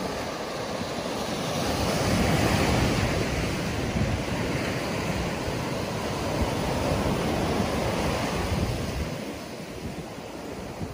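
Surf breaking and washing up a sandy beach in a continuous wash that swells about two seconds in and eases a little near the end, with wind buffeting the microphone.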